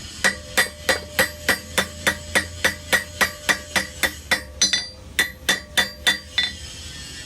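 Blacksmith's hammer striking metal on an anvil in a steady rhythm, about three ringing blows a second, stopping about six seconds in.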